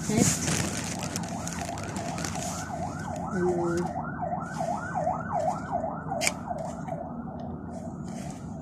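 Emergency-vehicle siren in a fast yelp, its pitch sweeping up and down about three times a second. It grows louder toward the middle and then fades. A plastic rustle comes at the start and a click near the end.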